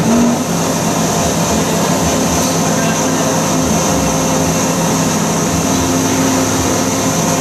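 Countertop blender in a clear sound enclosure blending a green tea drink; the motor comes on abruptly and runs steadily at a constant pitch.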